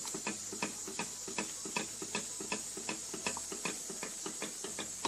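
Wire whisk stirring thick, starch-thickened lemon cream in a stainless steel saucepan, its wires clicking against the pan about three times a second, over a steady hiss. The butter is being whisked in until it melts.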